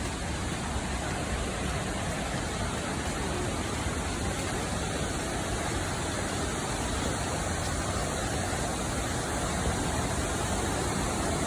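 Steady rushing roar of a waterfall, growing slightly louder near the end.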